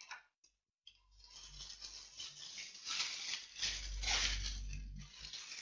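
Faint irregular rustling noise over a web-conference microphone, starting after about a second of dead silence, with a few louder swells.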